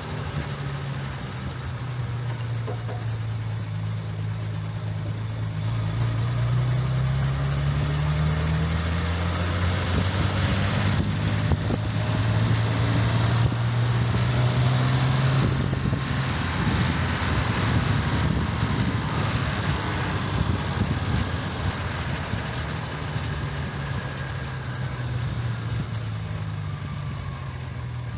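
Jaguar Mk2's XK straight-six engine driving the car on the road, its note climbing as it accelerates, breaking off about halfway through, then settling lower and rising again near the end.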